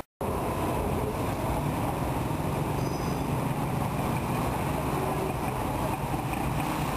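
Steady city street traffic noise: engines running and vehicles passing. The sound drops out briefly at the very start.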